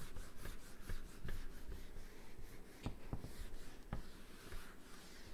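Handheld whiteboard eraser wiping marker writing off a whiteboard: repeated rubbing strokes across the board's surface.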